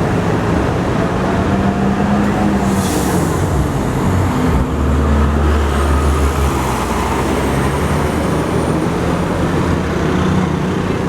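Buses running past on a road, a steady engine drone that swells loudly for a couple of seconds near the middle as one passes close. A short hiss about three seconds in.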